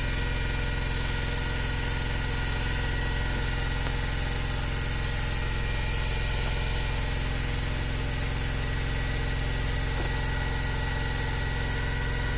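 Suzuki DA64 minivan's K6A three-cylinder engine running cold, held steady at about 3,000 rpm on the accelerator. It runs on only two cylinders: one ignition coil pack is dead, so that cylinder is misfiring.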